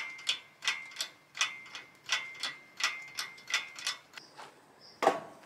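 Hydraulic engine hoist being hand-pumped to lift the buggy's rear: a regular metallic clicking about three times a second, which stops about four seconds in. A single louder knock follows about a second later.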